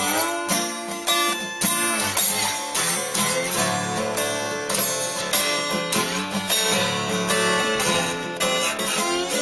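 Acoustic guitar music: strummed chords in a steady rhythm, with a few notes sliding in pitch.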